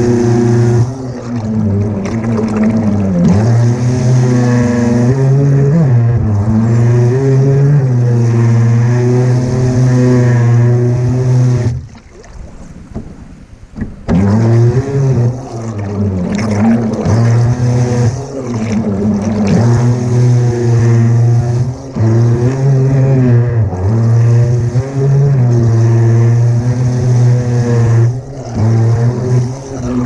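Remote-control fishing boat's motor running hard on the water, its pitch rising and falling as the throttle changes, with water spraying off the hull. About twelve seconds in the motor cuts out for a couple of seconds, then picks up again.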